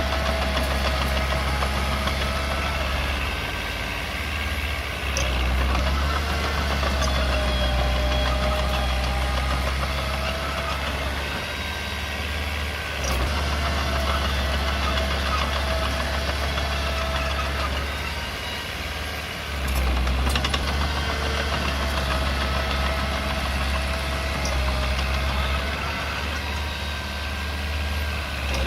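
Komatsu mini bulldozer's diesel engine running steadily as the dozer works, with a wavering whine above the engine and brief dips in loudness every several seconds as the load changes.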